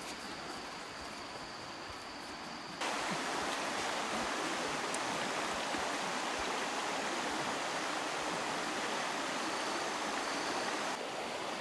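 Flowing stream water as an even rushing hiss, starting abruptly about three seconds in and dropping away near the end. Before it, only faint outdoor background with a steady high thin tone.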